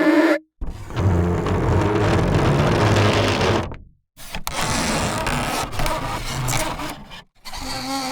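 Cello bow drawn across various materials, heard as separate sound-library takes cut apart by short silences. A pitched bowed tone ends just after the start. Then come a long raspy, grinding scrape and a second scrape carrying faint pitched ringing, and a new pitched bowed tone begins near the end.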